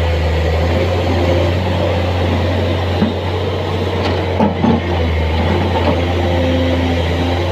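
Komatsu hydraulic excavator's diesel engine running steadily while loading sand, with a few short knocks about halfway through.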